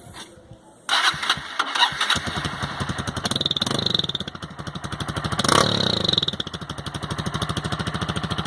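Honda CG 160 Fan's single-cylinder four-stroke engine, breathing through an aftermarket Roncar crackle ('estralador') exhaust, starts about a second in, is blipped twice, and settles into a steady idle.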